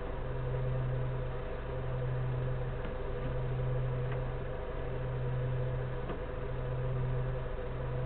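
A steady low mechanical hum over an even hiss, dipping slightly every second or two.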